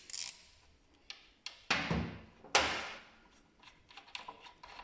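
Hand tools being handled during front-wheel work: two sharp knocks about halfway through, with lighter clicks and taps around them.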